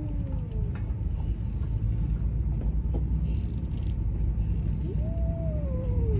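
Stray cat's aggressive yowl, the drawn-out call of a cat squaring up to fight: the tail of one fades out just after the start, and a second long yowl begins about five seconds in, falling in pitch. A steady low rumble runs underneath.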